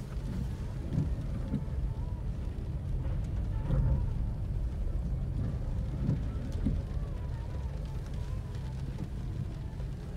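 Cabin noise of a small Toyota hatchback on the move: a steady low rumble of engine and road noise, with tyre hiss from the wet road.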